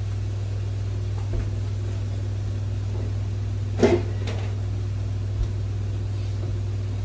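A steady low hum, with a few light knocks and a louder brief clatter about four seconds in, as someone handles things at the fridge.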